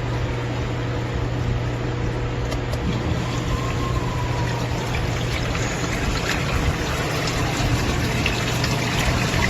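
Electric sump pump running with a steady hum while water rushes and splashes in the sump pit.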